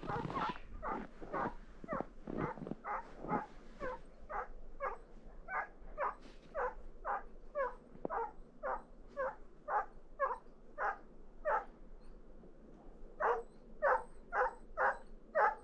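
A dog giving a long, regular run of yelping barks, about two a second, each dropping slightly in pitch, with a pause of about a second near the end.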